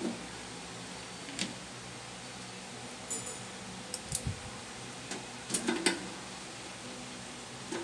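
Scattered metallic clicks and clinks of a screwdriver and screws on the sheet-metal cabinet cover of a diamond dermabrasion machine, loudest in a quick cluster a little past halfway, over a faint steady hum.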